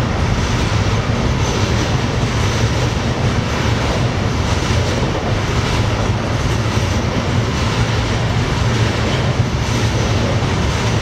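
Container freight train passing close by: the steady, loud noise of loaded container flat wagons rolling over the rails.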